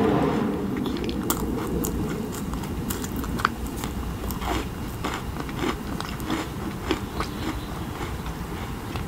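Close-miked chewing of a macaron, with many small, sharp crackles and clicks as the crisp shell breaks up in the mouth.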